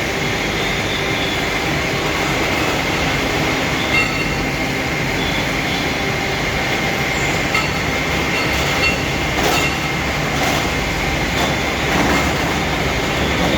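Continuous machinery noise: a steady rumbling hum with a faint high whine, broken by a few short knocks and clicks.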